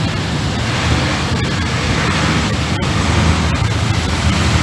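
Inside a moving city bus: a steady low engine rumble under a continuous rush of road and wind noise.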